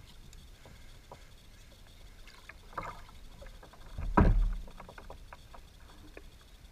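Light clicks and knocks of handling aboard a plastic fishing kayak, with one heavier, deep thump a little after the middle.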